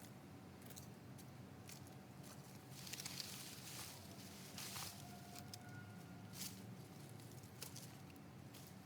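Faint rustling and light crunching with scattered soft clicks, from soil and plant matter being handled, busier and louder about three to five seconds in.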